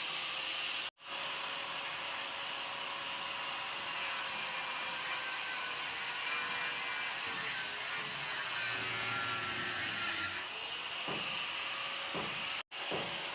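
Electric angle grinder with a cut-off disc cutting through an iron rod: a steady, harsh grinding noise over the motor's whine, whose pitch sags under the load of the cut. The sound drops out for an instant twice.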